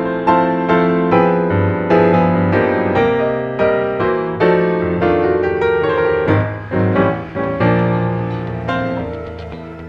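Background piano music, notes struck at an unhurried, even pace, growing softer near the end.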